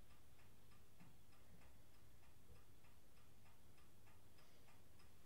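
Faint, quick, even ticking of a clock, about four ticks a second, over a low room hum.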